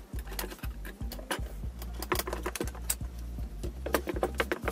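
Metallic clicks and knocks of bar clamps being set and tightened on freshly glued wooden pieces, irregular and several a second at times, over a low steady hum.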